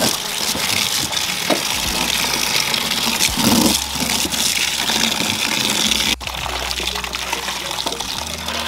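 Tap water running steadily into a plastic basin of hibiscus leaves as a hand swishes and turns the leaves in the water.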